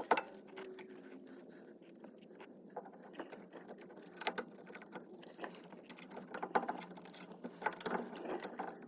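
Scattered light metal clicks and clinks as a brake caliper is fitted back onto its bracket and its bolts are started by hand.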